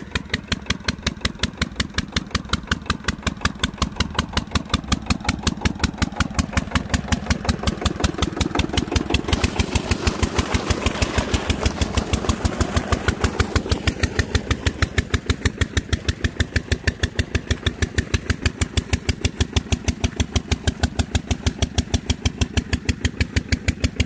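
Slow-running single-cylinder diesel tube-well engine (a "Peter" engine) driving the irrigation pump, with a steady even beat of about five firings a second. In the middle, water from the pump gushes out of the outlet pipe into the channel and adds a rushing noise over the engine.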